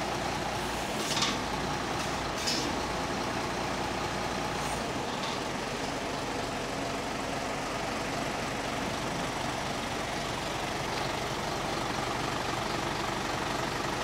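Diesel engine of a truck with a mounted hydraulic crane running steadily at idle, with two short air hisses about a second and two and a half seconds in.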